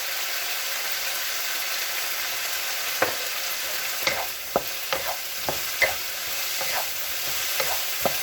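Chicken and celery sizzling in a frying pan as they are stir-fried, a steady hiss with a spatula scraping and knocking against the pan now and then from about three seconds in.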